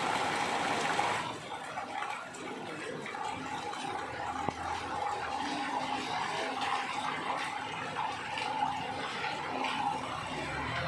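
Rain falling, a steady hiss of water that is heavier for about the first second, with a faint steady hum underneath.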